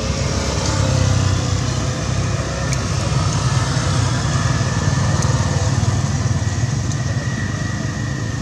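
A small engine running steadily, a low even hum, with a few faint ticks over it.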